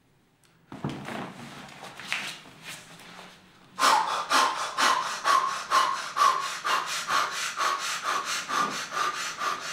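A man breathing heavily, then from about four seconds in panting fast and rhythmically, about three breaths a second, in imitation of prepartum labour breathing.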